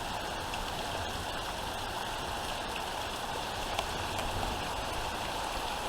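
Heavy thunderstorm rain and gusting wind: a steady hiss with a low rumble of wind on the microphone.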